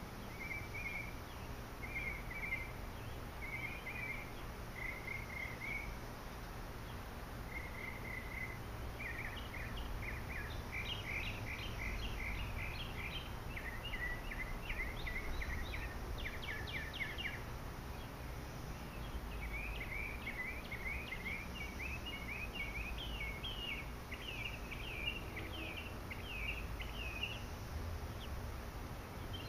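A songbird calling nearby: a few short, separate notes about once a second, then two long runs of rapid, chattering notes, over a steady low rumble.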